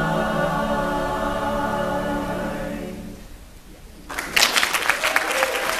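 Mixed high-school choir singing a cappella, holding a final chord that fades out about three seconds in. After a short pause, audience applause breaks out about four seconds in.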